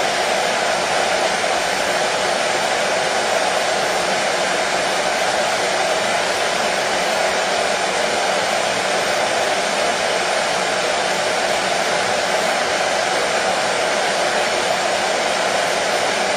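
Hair dryer running steadily: an unbroken, even rushing noise that does not change in pitch or level.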